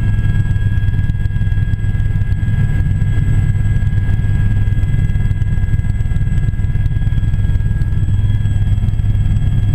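Aérospatiale Gazelle helicopter in flight, heard from inside the cabin: a loud, steady low drone from the rotor and Astazou turboshaft engine, with several constant high-pitched whines over it.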